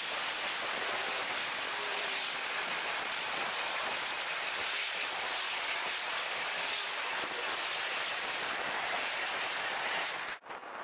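Intermodal freight train rolling past, its wheel and car noise sped up into a steady, high hiss. It cuts off abruptly near the end.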